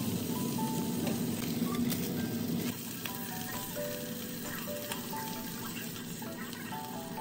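Salted cutlassfish fillets sizzling as they fry on cooking paper in a frying pan. The sizzle is loudest for the first few seconds, then eases off.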